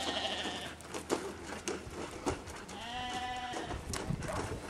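Sheep bleating twice: a short call at the start and a longer one about three seconds in, with scattered soft knocks between.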